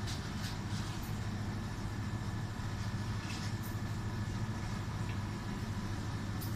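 A steady low mechanical hum, with a faint steady high tone above it and a few soft ticks.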